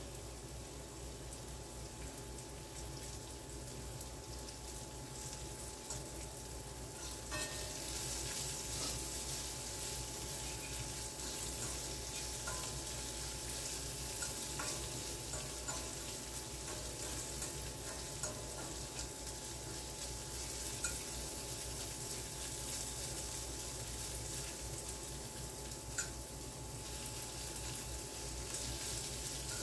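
Chopped onion, sweet peppers and sausage pieces sizzling in a skillet over a gas burner, stirred now and then with a few sharp clicks. The sizzle grows brighter and a little louder about seven seconds in.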